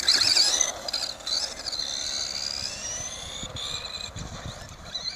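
Electric RC buggy motors (a Nikko Rhino Aero with stock Johnson 540 brushed motors) whining, the pitch wobbling quickly with the throttle at first. Then comes a long rising whine as the car speeds off, fading as it gets further away.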